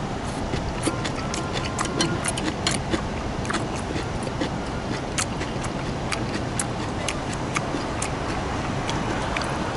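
Light, irregular clicks and taps of a stainless steel spoon and chopsticks against a stoneware bowl of pork gukbap as meat and rice are heaped onto the spoon, over a steady background noise.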